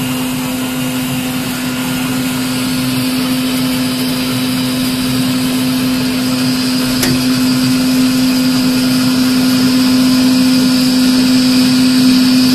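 JKE inline powder-liquid mixer running with a steady motor hum and a faint high whine, growing gradually louder while powder is sucked down through its hopper into the liquid.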